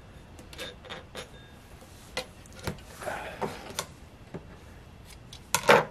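Handling noises at the sewing machine: scattered sharp clicks of scissors and a rustle of leather being pulled out from under the presser foot, with a loud double knock just before the end.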